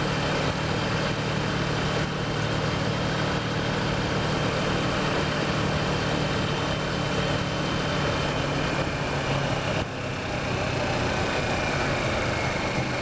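Kawasaki Versys motorcycle running steadily at road speed, with wind and road noise rushing over it; the engine note eases briefly about ten seconds in.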